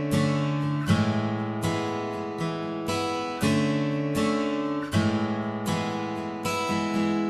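Background music: acoustic guitar strumming chords, a new strum about every second.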